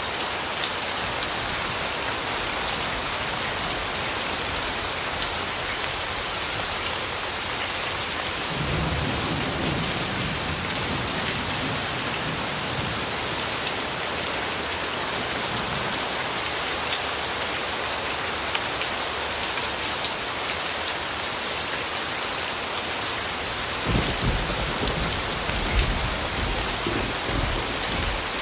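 Steady rain falling, with a low rumble of thunder about eight seconds in that fades over several seconds, and another starting near the end.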